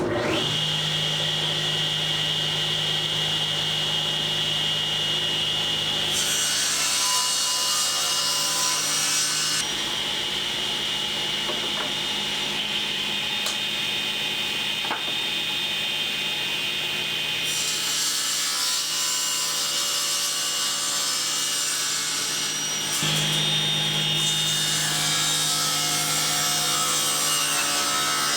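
Table saw running with a steady hum and whine, its blade cutting wooden boards to length; the cutting noise grows harsher and brighter for several stretches as the blade goes through the wood.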